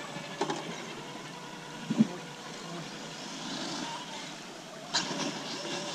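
Small radio-controlled crawler truck's electric motor and drivetrain running with a faint steady whir, with a few sharp clicks and a low thump about two seconds in as the truck works over wet rock.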